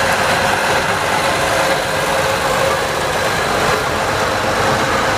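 Deutz small diesel shunting locomotive's engine running steadily as it passes close by on the track.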